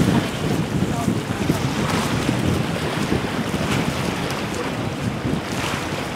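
Wind buffeting the microphone over the wash and splash of small waves, a steady rough rush with occasional faint slaps of water.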